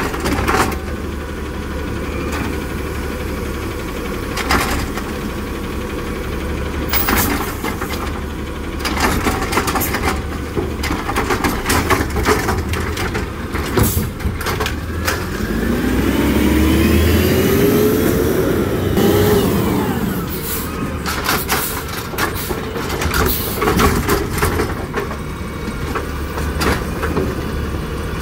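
Peterbilt 320 automated side-loader garbage truck, powered by natural gas, running while its hydraulic arm lifts and tips recycling carts, with repeated clanks and knocks from the cart and arm. Partway through, the engine's pitch rises and then falls as the truck moves up to the next carts.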